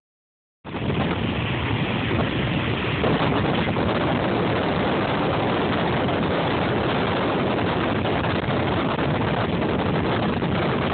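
Strong wind blowing over a phone's microphone, a loud steady rush that starts just under a second in.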